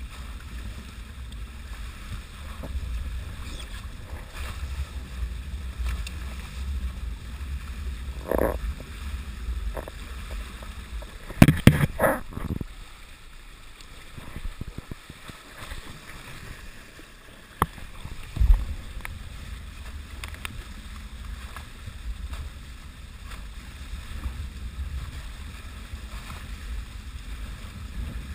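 Wind buffeting the microphone and water rushing past the hulls of a Hobie Wave catamaran under sail, a steady low rumble. A few knocks come through it: a cluster of loud knocks and clatters about halfway through, and a sharp knock and a thump a few seconds later.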